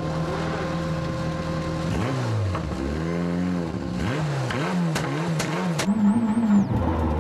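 Mitsubishi Lancer Evo WRC rally car's turbocharged four-cylinder engine heard from inside the car. It holds steady revs, then from about two seconds in it is revved up and down over and over, with a few sharp cracks near the end.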